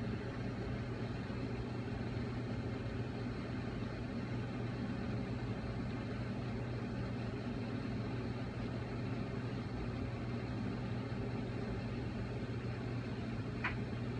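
Steady low hum, unchanging throughout, with one short high tick near the end.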